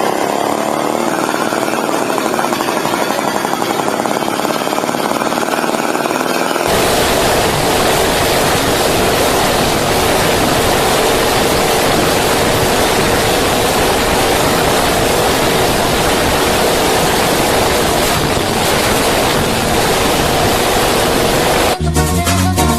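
Small motorcycle engines running loud and rough. About seven seconds in there is a cut to a louder, harsher engine with a steady drone.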